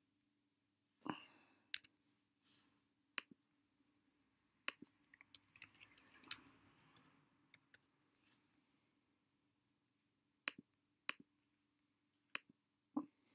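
Computer keyboard keys and mouse buttons clicking: a few scattered clicks, a quick run of key taps in the middle as text is typed, then single clicks spaced about a second apart near the end.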